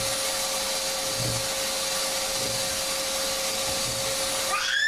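Vacuum cleaner running steadily: an even rushing noise with a constant motor whine, and soft low bumps about every second and a half. Near the end a high, rising whistle-like tone starts up over it.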